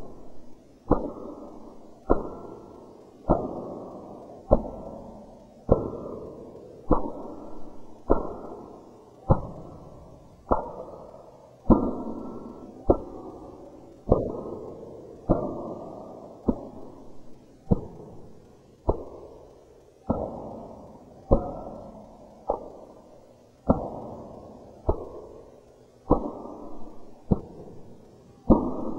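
Muffled, dull thuds repeating at a steady slow pace, about one every 1.2 seconds, each trailing off in a long echoing decay.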